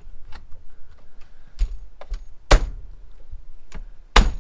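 Sharp plastic-and-metal clicks and knocks of circuit breakers being pushed and snapped onto the bus bar of a nearly full breaker panel, about six in all, the loudest a little past halfway and another strong one near the end.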